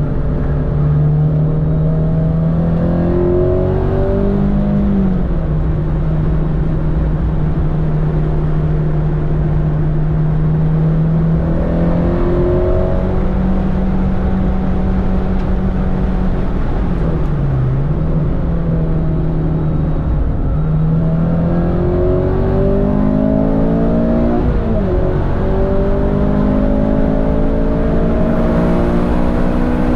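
Honda K-series four-cylinder engine heard from inside the cabin of a Civic at track pace. It holds fairly steady revs through the corners and dips briefly about two-thirds of the way through, then climbs hard through the revs with upshifts over the last third.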